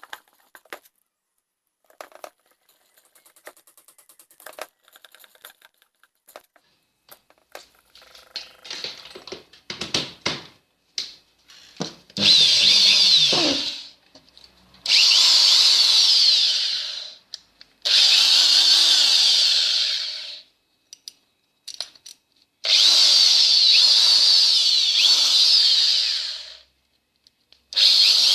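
Old electric hand drill run in four bursts of a few seconds each, its motor whirring up to speed and winding down between them, preceded by faint clicks of handling.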